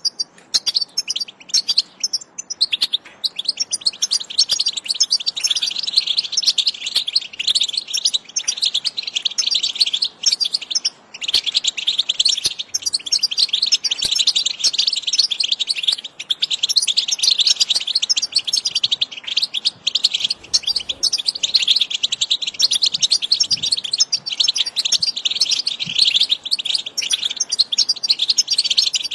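European goldfinch song: a fast, continuous, high twittering, broken by a brief pause about eleven seconds in.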